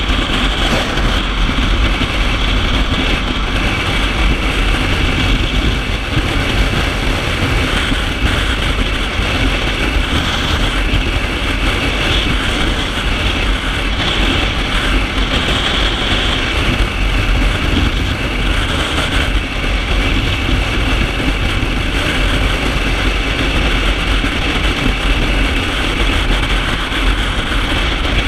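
Kawasaki Ninja 650's parallel-twin engine running at a steady highway cruise, mixed with constant wind rush over the microphone.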